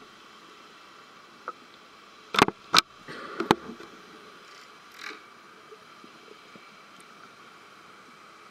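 Sound picked up by a camera held underwater: a steady hiss, with three sharp knocks between about two and a half and three and a half seconds in and a few softer rustles.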